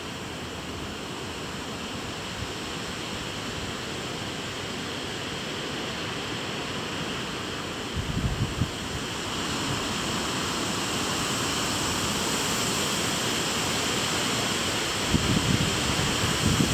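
Storm wind rushing steadily through trees, slowly growing louder, with gusts buffeting the microphone about eight seconds in and again near the end.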